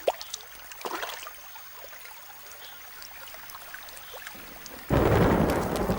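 Tropical rainstorm breaking. Scattered drips and ticks come first, then about five seconds in a sudden loud rush of heavy rain with thunder.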